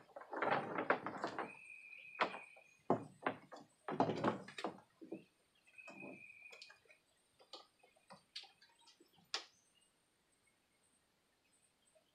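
Electric pressure washer's power cord being coiled by hand: rustling with irregular clicks and knocks as the cord and plug are handled. Two short, steady high whistles sound in between.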